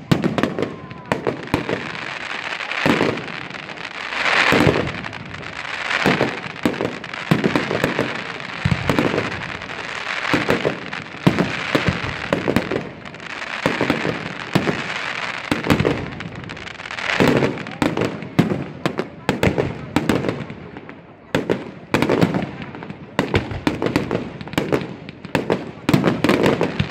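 Aerial fireworks display: an irregular run of sharp bangs from shells bursting overhead, with a crackling, hissing wash that swells and fades between them.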